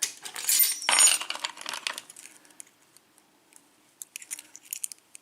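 Small metal lock cylinder parts clattering and jingling onto a hard surface for about two seconds, with short high metallic ringing. A few light clicks follow near the end.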